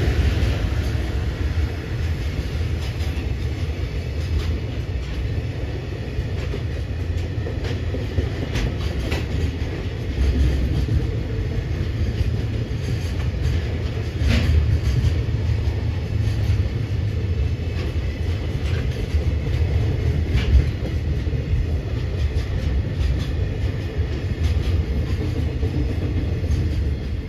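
Koki 104 container flatcars of a freight train rolling past close by: a steady low rumble with occasional sharp clicks, one louder click about halfway through.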